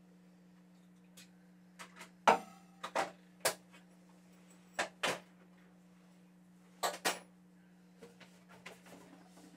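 Scattered handling knocks and clicks on a wooden cajon as pickup hardware is fitted, about seven sharp ones spread over several seconds, the loudest a little over two seconds in. A steady low hum sits underneath.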